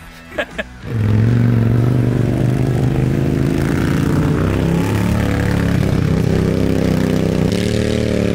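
Small off-road vehicle's engine starting to run loudly about a second in and then holding steady under throttle, its pitch stepping up and down a few times.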